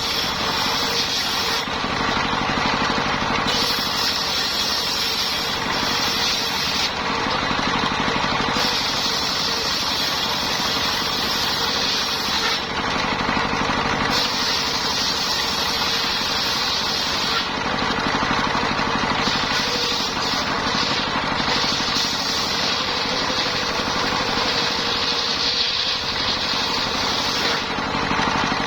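Engine-driven circular sawmill running steadily while sawing lamtoro wood. A higher whine comes and goes in stretches of a few seconds over the constant engine note.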